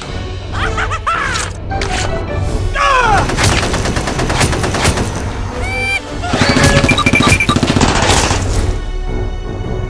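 Rapid bursts of gunfire sound effects over background music, with a couple of short falling whines early on.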